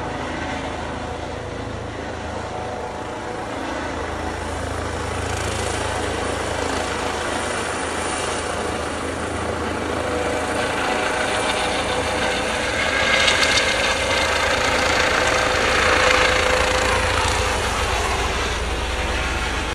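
Airbus EC135 helicopter taking off: steady rotor and turbine noise that grows louder through the second half, with a whine coming through. It cuts off abruptly at the end.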